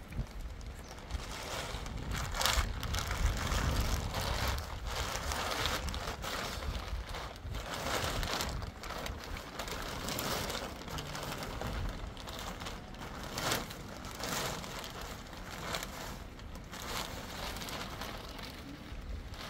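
Rain and wind noise on the microphone, with repeated crinkling rustles.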